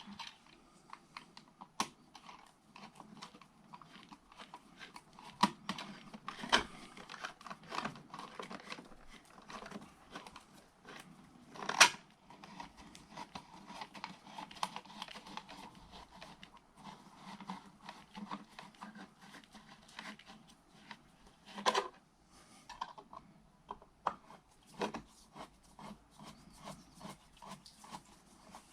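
Small clicks, scrapes and rustles of hands and a screwdriver working on a wall switch or socket and its faceplate, with two sharper knocks, about twelve and twenty-two seconds in.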